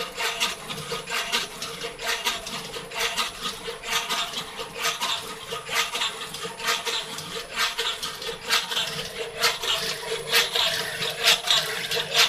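CNC machine running a program: a steady motor whine under irregular scraping and clicking strokes, a few each second.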